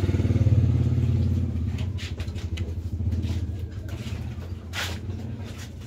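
An engine running with a low, rapid pulsing, fading away after about a second and a half. A few short clicks come near the middle.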